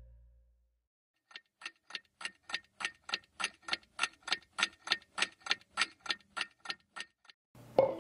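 Clock-like timer ticking, about three and a half ticks a second, growing louder and then fading away.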